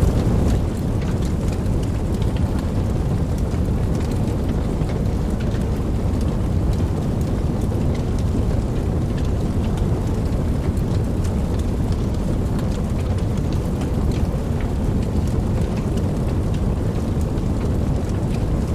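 Steady rain falling, with scattered drop ticks and a deep low rumble of distant thunder underneath.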